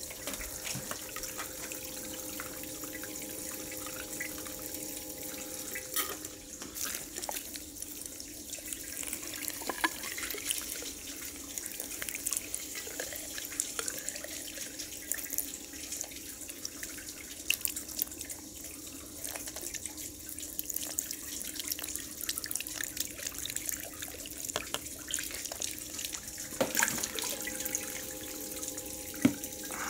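Water running steadily from a clear tube into a funnel and out of hoses, splashing and dripping, with scattered sharper splashes over a steady low hum.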